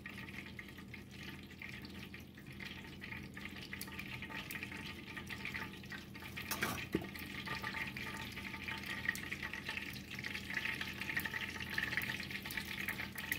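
Hot cooking oil in a frying pan, crackling faintly at first, then sizzling louder near the end as a filled corn tortilla is laid in to fry into a taco dorado. One small knock comes about seven seconds in.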